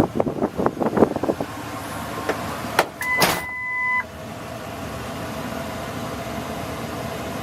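2006 Ford F-150 pickup: a quick run of clicks, then a sharp click and a one-second beep with a short burst of noise at the same time. After that the truck runs with a steady hum.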